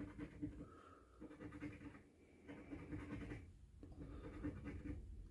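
Faint scratching of a coin on a lottery scratch-off ticket, in several short spells with brief pauses between them.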